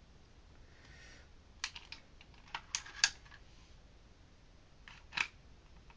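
Sharp plastic clicks and clacks from a spring-powered airsoft pistol being handled and worked: a quick cluster of clicks about a second and a half in, another cluster near the middle, and a single click near the end.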